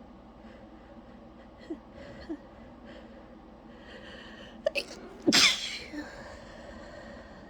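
A person sneezing once, loudly, with a pitch that falls away. Short catching breaths come first, in the build-up. The sneeze sounds tired.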